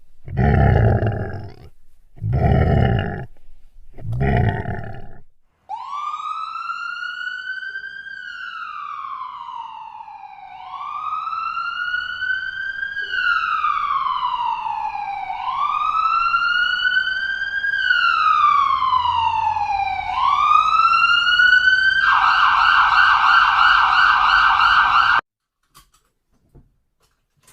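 Three short, loud, rough bursts, then an emergency-vehicle siren wailing up and down in slow sweeps of about two and a half seconds each. Near the end it switches to a fast yelp before cutting off suddenly.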